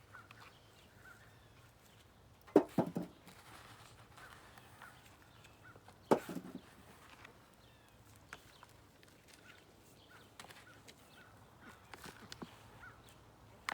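A few short thuds and rustles from hands digging potatoes out of a pot of soil and handling them, two of them clearly louder, with faint bird chirps in the background.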